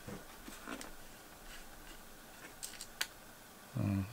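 Light scattered clicks and taps of a small screwdriver working mounting screws into a metal GPU waterblock. Near the end a man gives a short hummed "hmm".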